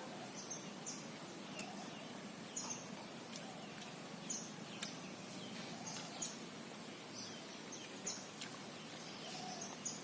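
A small bird giving short, high chirps at irregular intervals, about a dozen in all, over a faint steady background, with a couple of sharp clicks.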